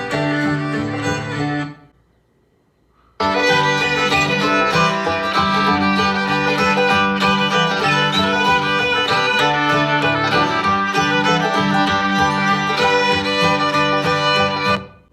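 Bluegrass-style music with fiddle and guitar played through a Bose SoundLink portable Bluetooth speaker. It fades out about two seconds in, stops for about a second, then comes back fuller and brighter, and fades out again near the end.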